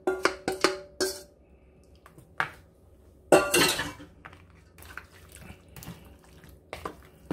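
A small stainless-steel pot clinking in quick ringing taps, about five a second, as melted butter is emptied out of it into a bowl. After that, a louder scrape about three seconds in, and a fork stirring squid rings through thick batter with soft, scattered clicks against the bowl.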